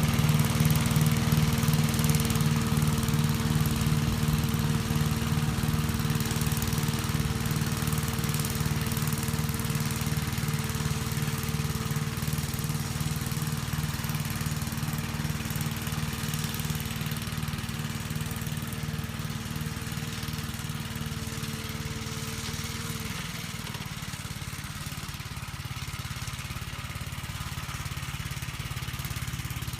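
1959 Gravely Model L tractor's single-cylinder engine running steadily with an even pulsing beat, slowly getting quieter; about three quarters of the way through its pitch drops as the engine slows down.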